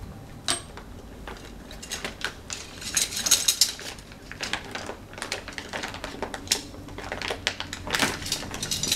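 Plastic packaging crinkling and rustling, with light clicks and clinks of the Arrow II antenna's aluminium 2-metre element rods knocking together as they are handled in and out of their bag. The crinkling is densest about three seconds in.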